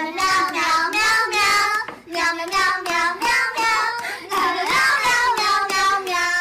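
A high, child-like voice singing a tune with drawn-out notes, with a short break about two seconds in.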